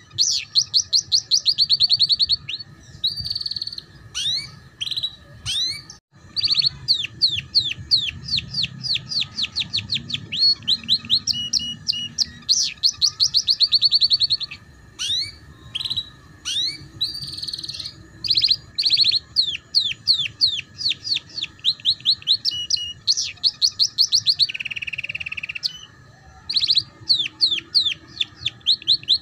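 Domestic canary singing a long, fast song in the chattering 'ngeriwik' style: rolling trills and runs of quick down-sweeping notes, with a short break about six seconds in and a harsher buzzy phrase near the end.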